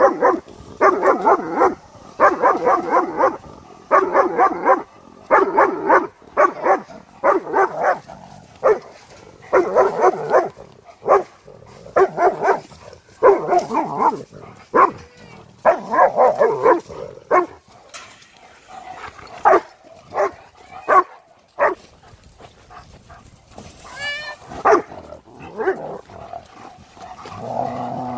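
A dog barking again and again, in quick runs of barks about half a second apart broken by short pauses, fewer barks in the later part.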